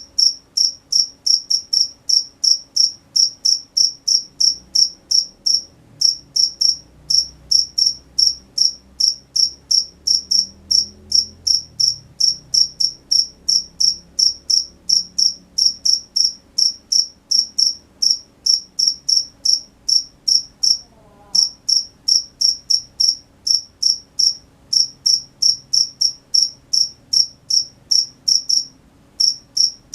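Cricket chirping in a steady rhythm, short high-pitched chirps about three a second, with a few brief pauses.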